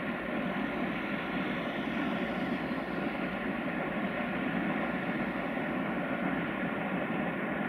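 Freight train wagons rolling past on the track, a steady, even rumble of wheels on the rails.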